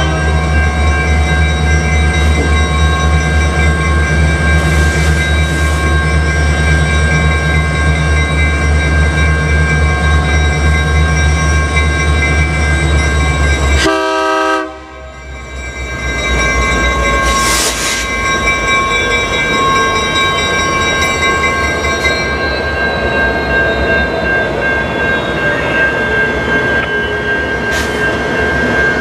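EMD SD60 diesel locomotives rumbling at a grade crossing while the crossing's warning bell rings steadily. After a short break about halfway, the lead unit and a second SD60 roll past, louder and rougher.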